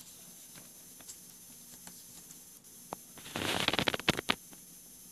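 Handling noise as a flip phone is picked up off a cloth: faint scattered clicks, then about three seconds in a brief scraping rustle with rapid ticking, followed by two sharp clicks.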